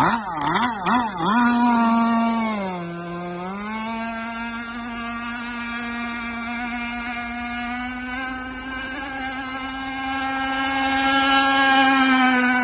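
Small gasoline engine of an RC sport hydroplane revving in several quick blips as the boat is launched. It eases off in pitch around three seconds in, then runs at a steady high pitch at speed, growing louder near the end.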